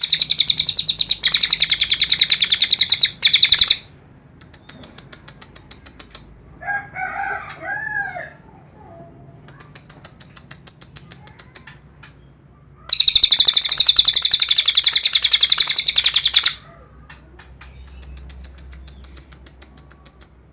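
Cililin songbird singing in harsh, very rapid high trills ('nembak kasar'), in two loud bursts of about three and a half seconds each, with softer rapid chattering between them. About a third of the way in there is a lower, warbling call of arching notes.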